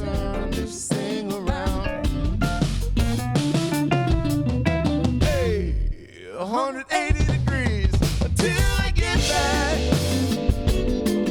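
A mixed band recording playing, with drum kit, guitar and bass. The music drops out briefly about six seconds in, then the full band comes back in.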